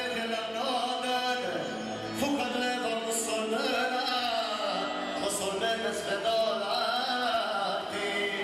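Music with a sung melody over instrumental accompaniment, running continuously.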